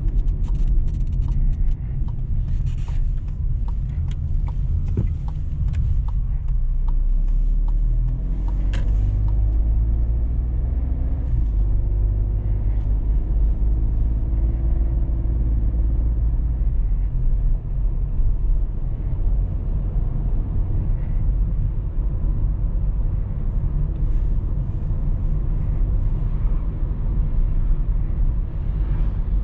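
In-cabin sound of a Volkswagen T-Cross 200 TSI (1.0-litre turbocharged three-cylinder) driving, with steady low road and tyre rumble. About a third of the way in, the engine note climbs in pitch as the car accelerates through the automatic gearbox's gears, then settles back into a steady cruise. A few sharp clicks and knocks come in the first several seconds.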